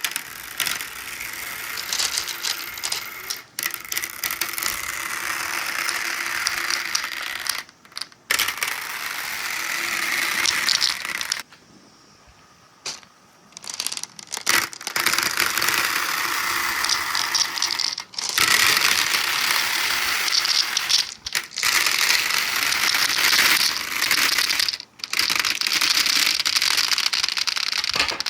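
Marbles rolling and rattling along a marble run's stainless steel tracks, with fine clicks and a ringing hiss. The rolling comes in runs of several seconds, with short breaks and one pause of about two seconds in the middle.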